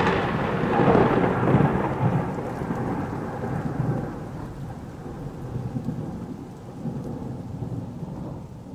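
Thunder sound effect: a long rolling rumble, loudest early on after a crack and slowly fading, with the hiss of rain under it.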